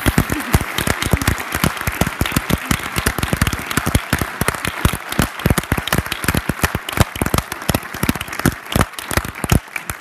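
Audience applauding, with one person's hands clapping loudly close by; the applause dies away near the end.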